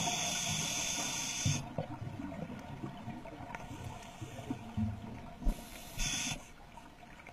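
Scuba regulator breathing picked up underwater: a hiss of about a second and a half at the start and a shorter one about six seconds in, with low irregular bubbling sounds between.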